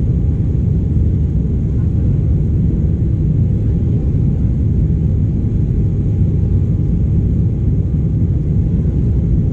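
Cabin noise inside an Embraer 195 airliner in flight: a steady, unbroken low rumble from its General Electric CF34-10E turbofan engines and the airflow past the fuselage, with a faint steady tone above it.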